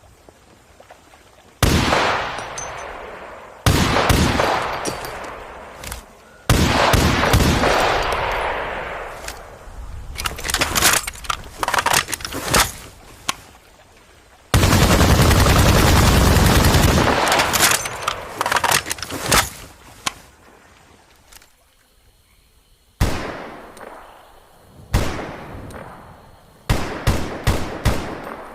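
AK-47 assault rifle gunfire: a series of bursts and single shots, each trailing off in a long echoing decay. Near the middle comes a run of quick sharp cracks, then about three seconds of continuous automatic fire; a few more bursts follow near the end after a short lull.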